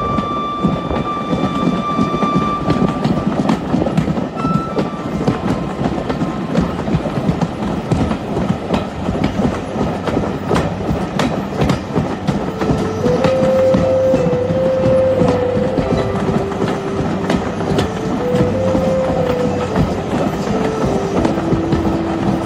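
Steam-hauled passenger carriages running along the track, a steady rumble with the frequent clicks of wheels passing over rail joints. The locomotive's steam whistle sounds at the start and stops about three seconds in. From about halfway, a slow tune of held notes plays over the train noise.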